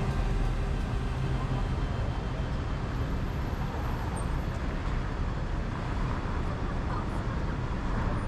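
Steady road and traffic noise from a car driving on a city street: a constant low rumble of engine and tyres.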